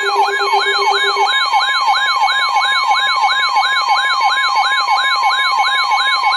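Electronic emergency-alert siren, its pitch sweeping up and down rapidly about three times a second over steady electronic tones. A low tone under it stops about a second in.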